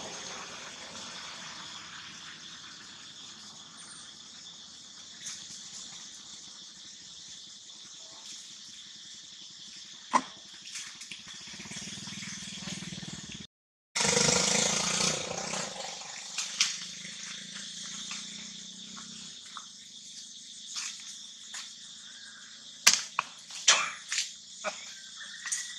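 Steady high buzz of insects in the forest, with scattered sharp clicks and taps, a cluster of them near the end. The sound cuts out for a moment about halfway.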